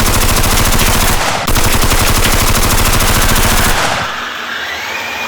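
Rapid, continuous machine-gun fire, a fast train of shots with a brief break about a second in. It stops about four seconds in, leaving a quieter hiss with a faint rising whistle.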